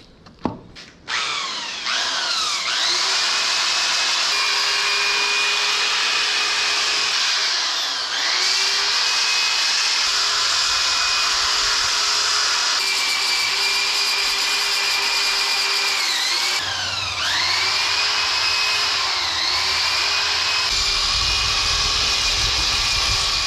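Corded electric drill with a sanding disc on it, spinning up about a second in and running steadily as it sands wooden legs. Its whine dips in pitch several times as the disc is pressed into the wood, then recovers.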